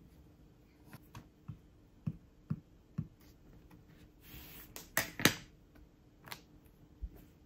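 A stamping platform being worked by hand: a few soft knocks and taps, a brief rustle, then two sharper plastic clacks about five seconds in as the clear lid is closed and pressed down, followed by a couple of lighter knocks.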